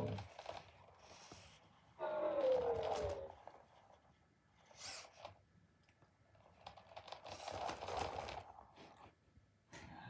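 KEYi Tech Loona robot pet giving one short electronic coo that falls in pitch, about two seconds in, amid faint scuffing as it shifts about on the rug.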